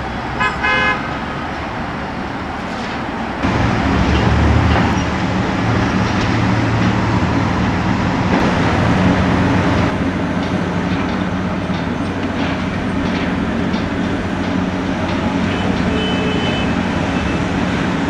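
Heavy diesel machinery running, with two short horn toots right at the start. About three seconds in the engine note deepens and grows louder, then holds as a steady low drone.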